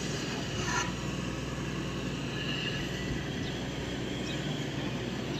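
Matador Shantui ME210 C-1 crawler excavator's diesel engine running steadily under digging load, with a short sharp noise from the working machine about a second in.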